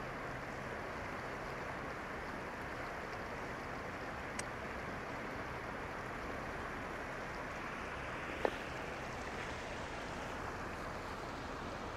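Steady rushing of a shallow river running over rocks, with two brief clicks about four and eight seconds in.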